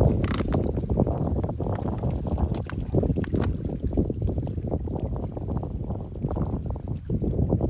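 Wind buffeting the microphone in a steady low rumble, with a few short light clicks and rustles in the first half.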